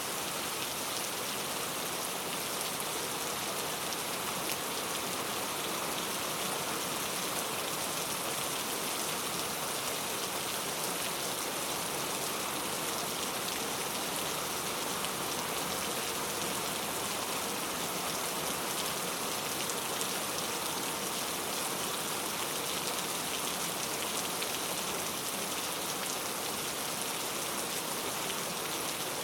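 Steady rain falling, a constant hiss with fine patter of drops.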